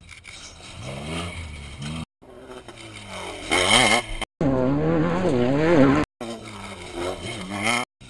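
Off-road race vehicles' engines revving hard as they charge past over rough dirt, the engine note rising and falling sharply again and again as the throttle opens and lifts. The sound comes in several short stretches, each cutting off abruptly.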